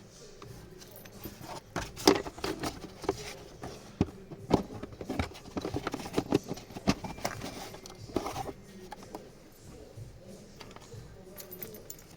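Irregular clicks, knocks and rattles of parts being handled by hand, the loudest about two seconds in.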